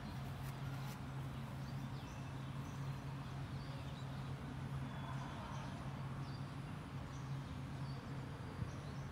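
Open-air ambience: a steady low hum under a faint even noise, with a single light click near the end.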